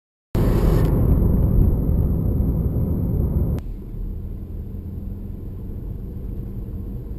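Low, steady rumble of a car driving, heard from inside. There is a sharp click about three and a half seconds in, after which the rumble is quieter and steadier.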